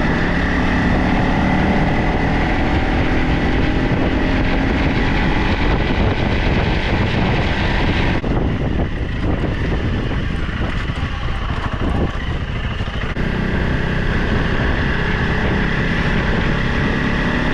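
Motorcycle engine running while riding, with wind noise on the microphone. The engine's low note fades for about five seconds midway, then comes back.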